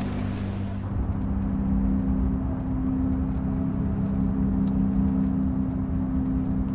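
A car driving, its engine and road noise a steady low drone with a low rumble beneath.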